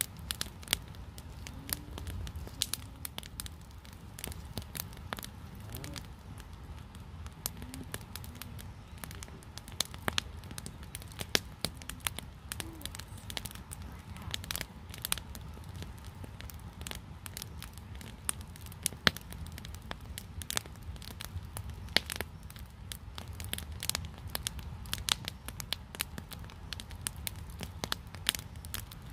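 Wood campfire of sticks leaned against a large burning log, crackling steadily with frequent irregular sharp pops, a few louder than the rest, over a low steady rumble.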